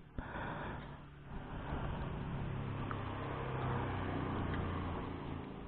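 A motor vehicle engine running in the background, a steady low hum that swells about a second and a half in and fades near the end, with a faint click nearly three seconds in.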